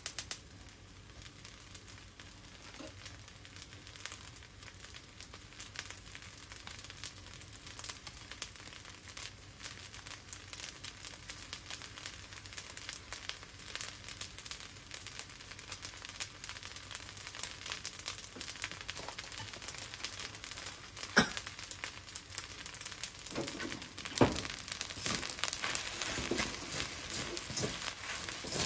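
Fried rice sizzling and crackling in a hot wok, with one sharp knock about three quarters of the way in. Near the end it gets busier and louder as a wooden spatula scrapes and turns the rice.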